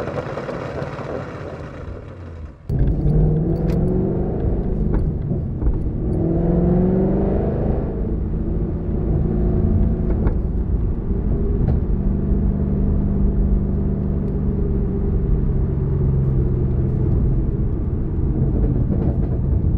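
2012 Ford Mustang GT's 5.0 Coyote V8 through Borla long-tube headers, off-road X-pipe, ATAK axle-back and deleted resonators, running loud on the road. About three seconds in the sound jumps louder and deeper, heard from inside the cabin; the engine rises in pitch twice as the car accelerates, then holds a steady drone at cruise.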